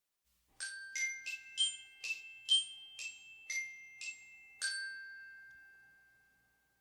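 A short chime melody of about ten struck, bell-like glockenspiel notes, the last one ringing on and fading away.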